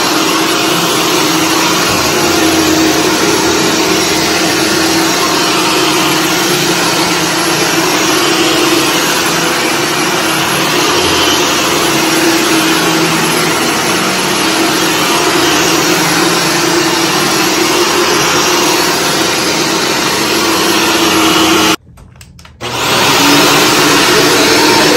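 Shark Stratos upright vacuum cleaner running over carpet: a steady whir of motor and brushroll with a humming tone. It cuts out abruptly for under a second near the end, then comes back.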